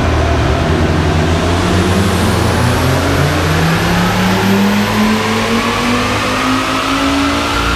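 Volvo S60 R's turbocharged five-cylinder engine on a chassis dyno during a full-throttle pull, its pitch climbing steadily as the revs rise under load, with a faint high whine rising alongside.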